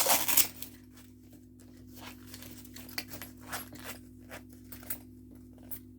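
Small wallet being handled and opened: scattered light clicks and rustles, with a few coins inside. A steady low hum runs underneath.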